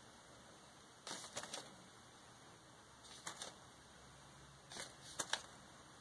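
Faint light clicks and taps in a few brief clusters, as flatback glass rhinestones are picked off a paper sheet with a pointed tool and pressed onto a glued metal shoe buckle.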